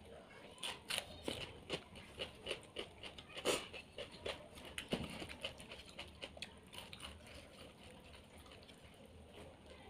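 Quick, light clicks and taps of a bowl and fingers against a plate as fish curry gravy is poured over rice and mixed in by hand. The loudest click comes a little past three seconds in, and the tapping dies away after about seven seconds.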